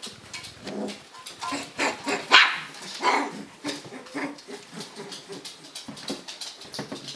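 Four-week-old puppies yipping in short, high calls, one after another, the loudest about a third of the way in.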